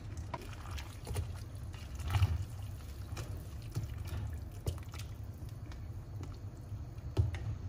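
Metal ladle stirring and scooping broth in a stainless steel pot of hotpot soup, the liquid pouring and splashing back off the ladle, with a few sharp knocks of ladle against pot.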